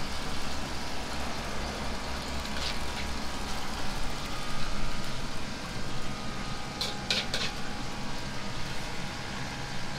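Steady rushing noise of a commercial kitchen's ventilation with a low hum underneath, and a few brief clinks of a metal ladle and dishes: once about three seconds in and a quick cluster around seven seconds.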